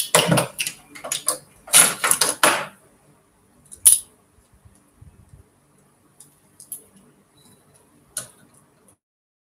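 Small metal tools and parts clattering and clinking as they are handled on a worktable during a sewing machine repair: a busy run of rattles in the first few seconds, one sharp click about four seconds in, then a few light ticks.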